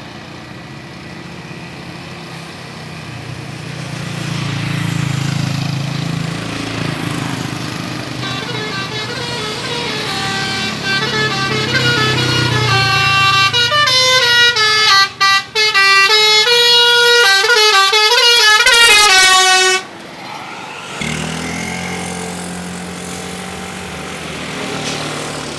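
A coach's 'telolet' musical air horn playing an Indian-style tune, its notes stepping up and down and growing louder, with a couple of brief breaks midway, until it cuts off suddenly about twenty seconds in. The bus engine's low rumble runs underneath and carries on after the horn stops.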